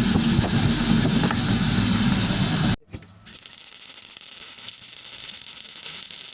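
Sandblaster blasting: a loud, steady hiss of air and grit with a low rumble that stops abruptly about three seconds in, leaving a fainter steady hiss.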